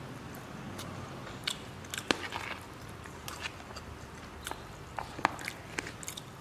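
Close-miked chewing of spicy instant noodles: scattered sharp, wet mouth clicks and smacks, loudest a little after two seconds and again around five seconds in.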